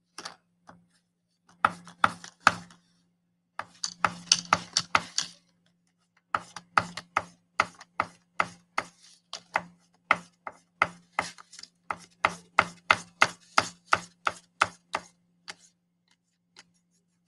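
Crayon strokes on a paper plate against a tabletop, coloring in stripes: short scratchy taps, two brief runs and then a steady run of about three a second that stops near the end.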